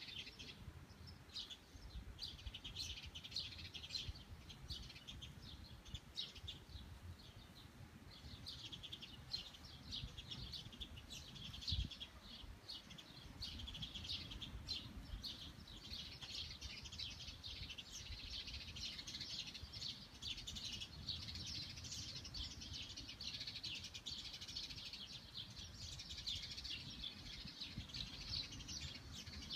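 Many small birds chirping rapidly and continuously over a low steady rumble, with a single brief thump about twelve seconds in.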